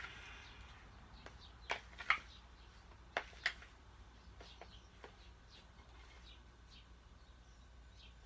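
Spoon tapping and clicking against a plastic bowl while stirring stiff cornstarch-and-lotion dough: a few short, sharp clicks, two pairs about a second apart, then fainter ticks.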